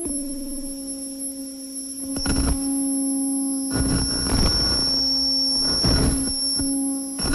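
Harsh noise music from a modular synthesizer: a low drone and a thin high whine held steady, with bursts of grinding noise cutting in about two seconds in, longer around four seconds, again near six seconds and briefly near the end.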